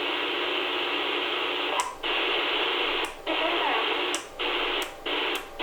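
Receiver static hissing from a President Washington CB/10-meter radio's speaker as it is stepped through the channels, the hiss cutting out briefly with a click about once a second at each channel change.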